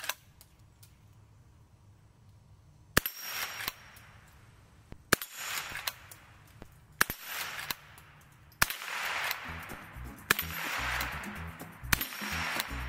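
Marlin 39A lever-action .22 rifle firing about six shots, a second and a half to two seconds apart, starting a few seconds in. Background music comes in about two-thirds of the way through, under the later shots.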